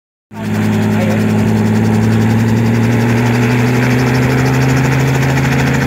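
Small helicopter running on the ground with its rotor turning: a steady engine-and-rotor drone that starts sharply just after the beginning, its pitch rising slightly.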